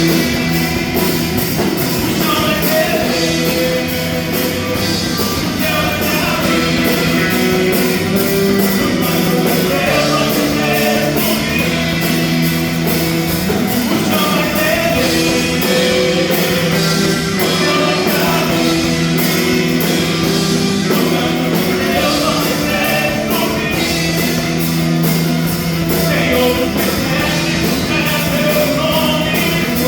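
Loud, steady full-band worship rock music with a regular drum beat and guitar.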